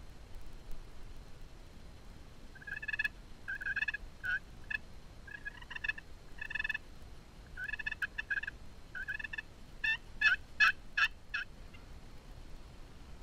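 Turkey yelping: a run of short, evenly paced yelps starting a few seconds in, ending in a quicker burst of sharper, louder notes.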